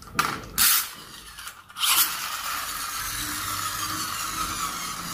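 Plastic toy car's gears rasping in two quick strokes, then whirring steadily as the car runs along a tiled floor, the whir slowly falling in pitch.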